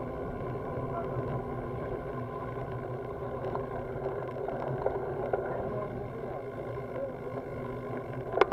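Steady, muffled road and wind noise from a bicycle ridden uphill slowly on asphalt, picked up by a handlebar-mounted camera. Near the end comes a quick run of sharp clicks.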